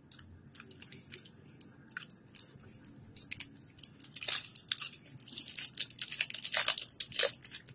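Shiny plastic candy wrapper crinkling as it is twisted and pulled open around a hard candy. Sharp crackles come sparsely at first, then thick and loud through the second half.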